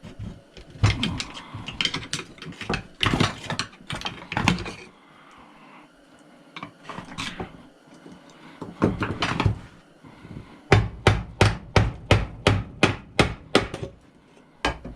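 Hand tools clanking and knocking in irregular bursts, then a fast, even run of about a dozen sharp knocks, about four a second, near the end.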